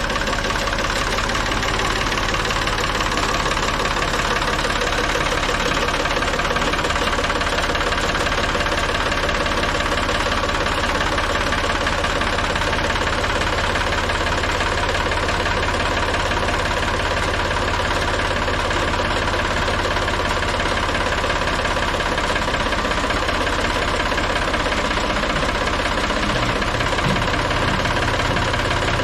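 Ford 4500 backhoe's engine running steadily at a constant speed.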